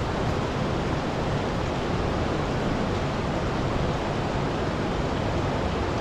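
Steady rush of river water running over rocks.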